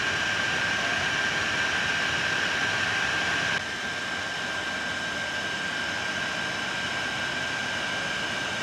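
3D printer's cooling fans running steadily, a hiss with a thin high whine, while the toolhead sits still and the nozzle heats up before a print. About three and a half seconds in, the sound drops a little quieter.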